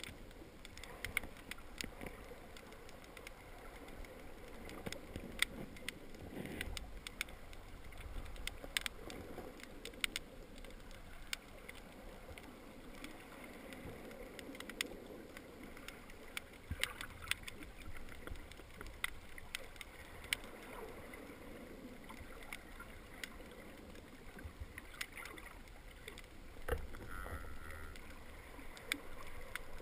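Underwater ambience picked up through a GoPro's waterproof housing: a low, muffled rush with many scattered sharp clicks and crackles, and a few stronger low surges.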